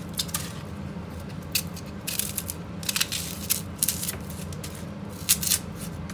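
Kitchen knife slicing an onion thin on a cutting board: short, crisp cutting sounds at irregular intervals.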